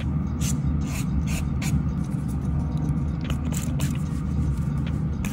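Soft nail buffer rubbed lightly over a fingernail in short, irregular scratchy strokes, over the steady low hum of a nail-desk dust collector fan.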